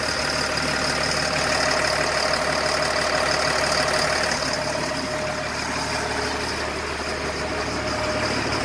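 LMTV truck's Caterpillar diesel engine idling steadily, with a thin steady whine over the engine sound.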